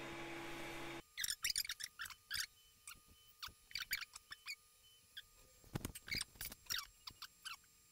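Faint, irregular scratchy clicks and small taps in uneven clusters, starting about a second in: potting peat being scooped and scraped out of a 3D-printed plastic wall planter.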